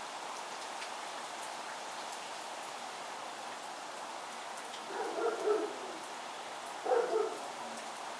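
Steady hiss and patter of wet snow falling on surfaces, with fine ticks throughout. A dog barks in two short bouts, about five seconds in and again near the end.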